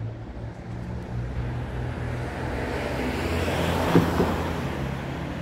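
Street traffic: a steady low engine hum with a vehicle passing by, its sound swelling to its loudest about four seconds in, where there is a short knock, then easing off.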